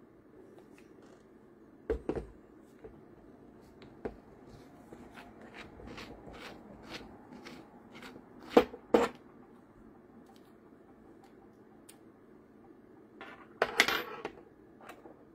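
Handling a flexible drill-shaft extension with a keyless chuck: a run of evenly spaced clicks, about three a second, as the chuck is twisted, then two sharp knocks about nine seconds in. Near the end, a short clatter of small metal bits.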